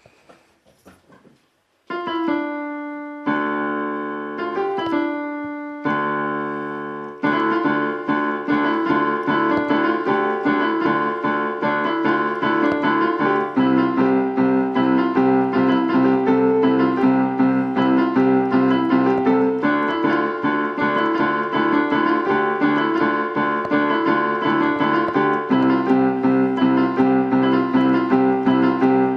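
Keyboard music: a few held chords struck one after another, then, about seven seconds in, a fast, even stream of repeated notes that keeps going.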